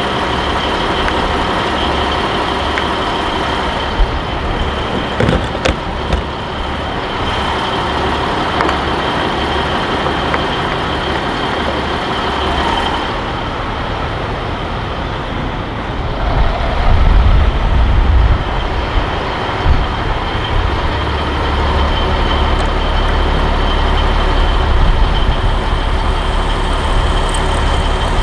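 Heavy diesel trucks running: a steady mechanical din with a thin high whine. A couple of sharp clicks come about four and five and a half seconds in, and a deeper low rumble grows louder from about sixteen seconds in.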